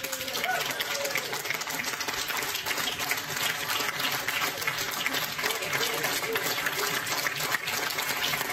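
Applause from an audience and the band members clapping, steady throughout, with a few voices mixed in.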